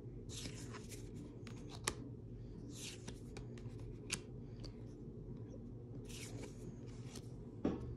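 Tarot cards being slid one at a time off the top of a deck onto a knitted blanket: three soft swishes a few seconds apart, with a few light card clicks between them.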